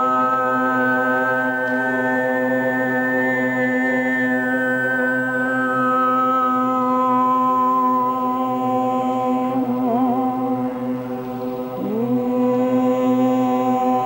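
A group of voices chanting one long held note together, a steady drone with bright high overtones that shift slowly above it. Just before two-thirds of the way through the sound dips and wavers, then a voice slides up back into the note.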